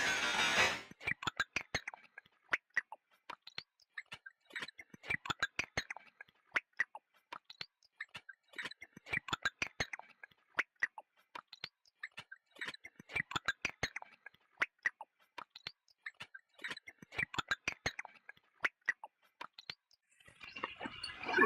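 Ultrasound detector output: inaudibly high sounds turned into audible ones, heard as dry clicks in short irregular bursts with quiet gaps between. A hiss cuts off about a second in and comes back near the end.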